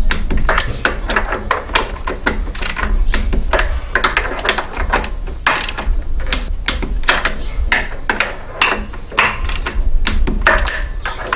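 Torque wrench ratchet clicking in many sharp, irregular clicks as the power steering pump bracket bolts are run down and tightened to 25 foot-pounds.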